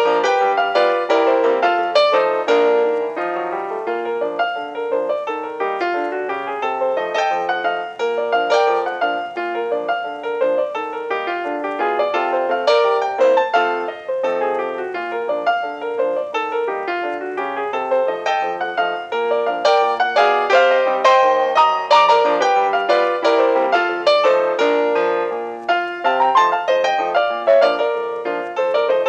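Piano music, busy with quick notes.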